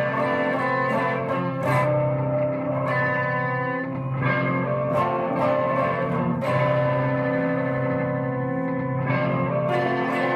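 Guitar music played through effects, with distortion and echo: chords struck every second or so and left to ring over a steady low note.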